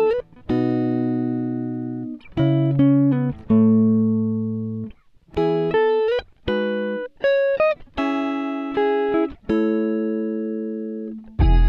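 Background music: a guitar playing a slow run of single struck chords, each left to ring and fade before the next.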